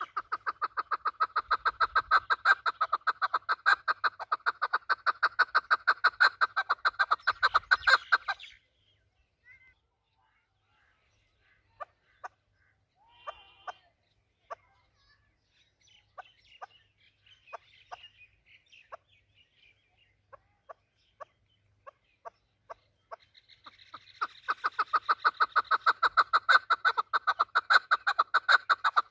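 Male chukar partridge (chakor) calling: a fast, even run of repeated chuck notes for about eight seconds, then a stretch of scattered single notes, and the rapid run starting up again about three-quarters of the way through.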